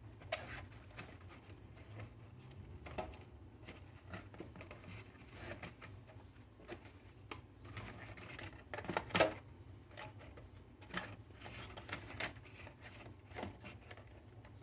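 Plastic bottle being cut and handled: irregular small clicks and crackles, with a louder cluster about nine seconds in, over a faint steady low hum.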